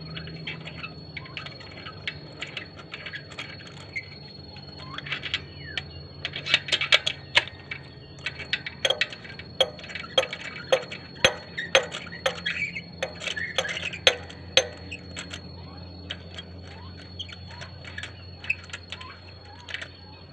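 Scattered metallic clicks and clinks of hand tools and engine parts being handled during spark plug work, over a steady low hum.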